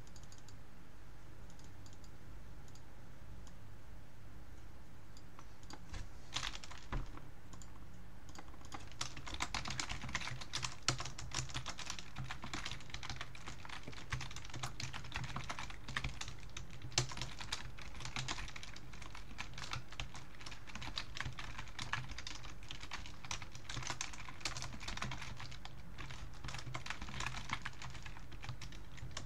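Typing on a computer keyboard: a few faint keystrokes at first, then rapid, irregular clicking from about six seconds in as code is written.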